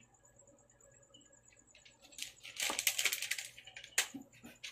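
Handling noise as a smartphone is set down into its cardboard box tray: a dense flurry of rustling clicks a little past halfway, then one sharp tap about four seconds in.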